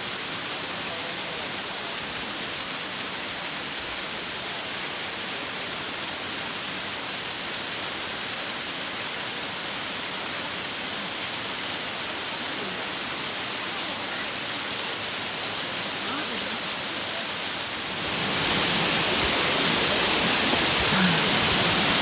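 Yōrō Falls and the cascading stream below it: water falling onto rocks makes a steady rushing sound that gets louder about 18 seconds in.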